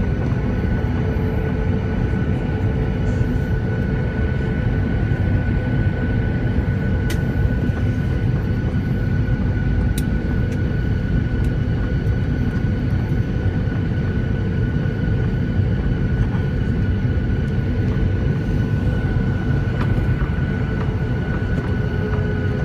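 The CFM56-7B turbofan engines of a Boeing 737-900ER running at a steady power, making a constant heavy rumble with a thin steady whine over it. A few faint clicks sound now and then.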